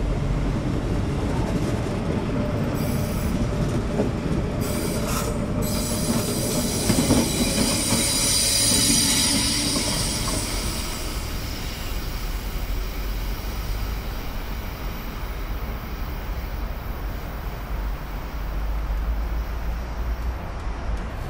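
SBB regional passenger train rolling along curved track, its steel wheels squealing against the rails on the curve over a steady low rumble. The squeal is loudest a few seconds in, then dies away while the rumble carries on.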